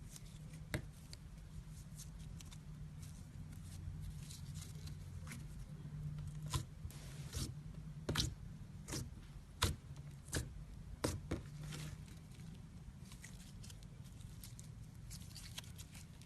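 Slime being squished and stretched by hand, giving scattered sticky clicks and pops that come thickest and loudest in the middle, over a low steady hum.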